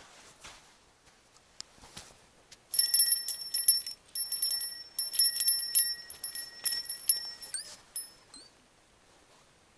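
A small metal bell jingling in quick, repeated shakes for about five seconds, with a brief pause near its start. It ends with a couple of wavering rings.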